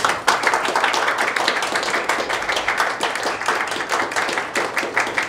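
Audience applauding: a dense, steady patter of hand claps that starts suddenly as a letter of appointment is handed over.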